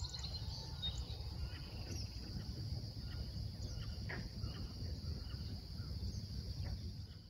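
Marsh ambience: a steady high insect trill with scattered short bird chirps over a low rumble.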